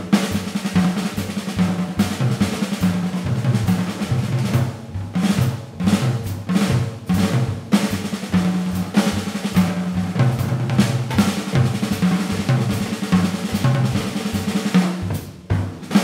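Jazz drum solo on a Gretsch drum kit with Paiste cymbals: fast snare rolls and rimshots, tom and bass drum strokes and cymbal hits, played without a break.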